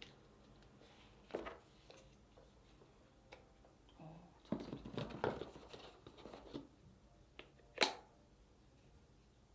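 Scattered handling noises: light knocks, rustling and a sharp click about three-quarters of the way through, as items and packaging are handled.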